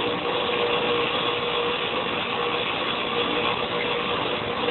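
Electric grinder running steadily with a constant hum, as the steel jaws of a pair of side cutters are ground gently against the wheel with a continuous hiss.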